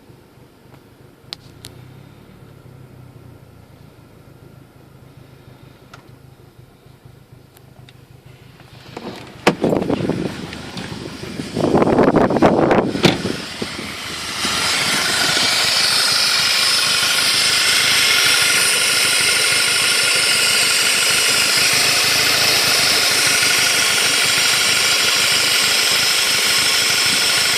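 VW Golf GTI engine: quiet with a few clicks at first, then loud irregular bursts of noise about ten to thirteen seconds in, followed by a steady loud hiss, the sound of the leak in the title.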